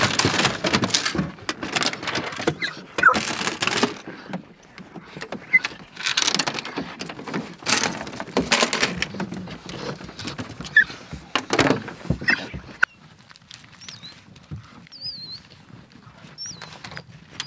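Hounds being let out of an aluminium dog box onto a pickup bed: claws scrabbling and pattering on the bed, with metal rattling from the box and collars, in uneven bursts that die down after about 13 seconds. A few faint high squeaks follow near the end.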